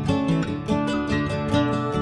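Music led by plucked acoustic guitar, a quick run of picked notes.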